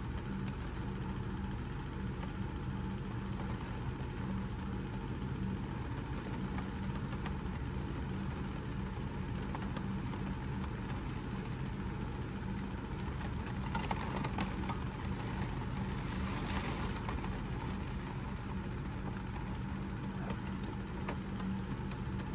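Hurricane wind and rain, a steady rushing noise with a constant low hum beneath it. About fourteen seconds in, a stretch of louder crackling hiss rises for a few seconds.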